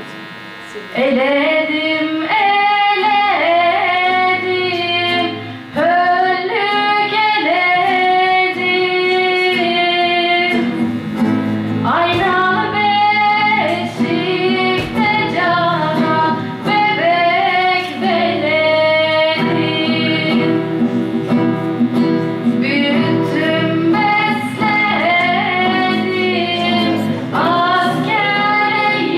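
A girl singing a song live into a microphone, accompanied by acoustic guitar and other plucked strings; the singing and playing come in about a second in.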